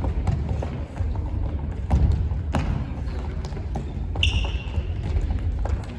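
Soccer ball being dribbled and kicked on a wooden gymnasium floor, with running footsteps and echoing knocks, the sharpest about two seconds in. A short high squeak, as of a shoe on the floor, about four seconds in.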